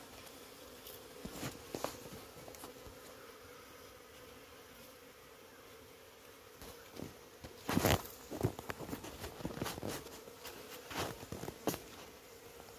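Honey bees buzzing in a steady hum around a cut-out comb, with scattered clicks and knocks from handling. The loudest knocks come in a cluster about eight seconds in.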